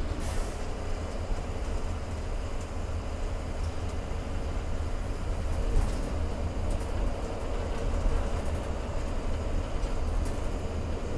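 Ride noise inside a moving GSRTC luxury bus: a steady low rumble of engine and tyres on the road, with a few light rattles and ticks.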